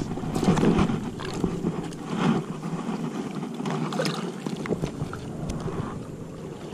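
Choppy lake water lapping, with wind buffeting the microphone and scattered small clicks and rustles of close handling.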